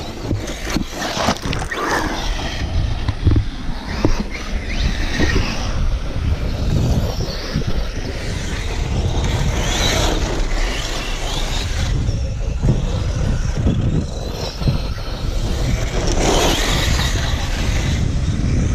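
Radio-controlled model cars being driven hard over rough ground, the motor whine rising and falling several times as they rev, over a constant rumble of tyres and ground noise.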